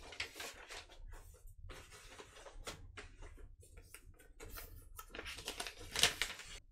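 Rustling, scraping and light knocks as a vinyl record and its packaging are handled, in irregular strokes, with a louder rustle about six seconds in.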